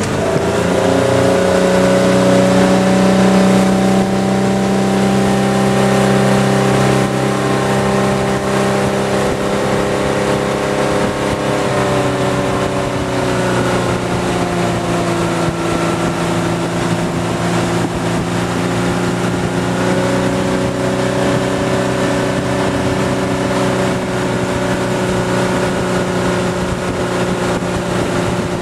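Wakeboard tow boat's engine running under way at towing speed, a steady drone.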